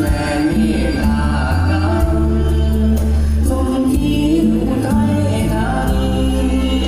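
Amplified live band music: a man singing into a microphone over drums and keyboard, with a steady low bass line and a regular beat.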